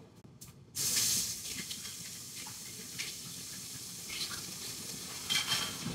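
Kitchen tap turned on about a second in, water running steadily into the sink with a hiss, with a faint click or two from something handled at the sink.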